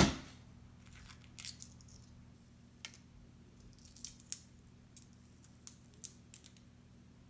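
A metal spoon knocks once against a glass bowl right at the start, ending a run of stirring strikes. It is followed by scattered faint light ticks and clicks over a low steady hum.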